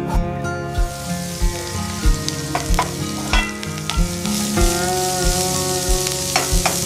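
Background music with a steady beat and held tones, under a steady sizzling hiss that comes in about a second in.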